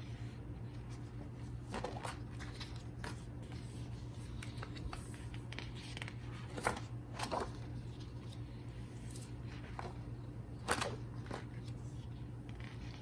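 Paper handling as the pages of a thick photobook are turned and moved: scattered rustles and light taps, the sharpest about two seconds in, twice around the middle and once near the end, over a steady low hum.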